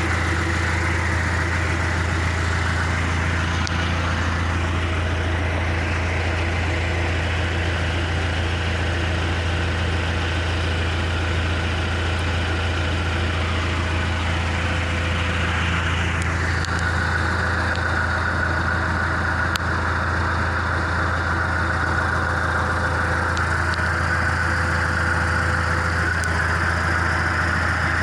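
2003 John Deere 410G backhoe's diesel engine idling steadily, with a steady low drone; about two-thirds of the way through, the higher whine above it settles to a new pitch.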